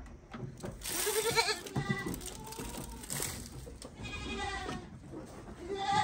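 Goats bleating, several wavering calls one after another, the loudest about a second in. They are crying for feed while others in the herd are given crushed corn.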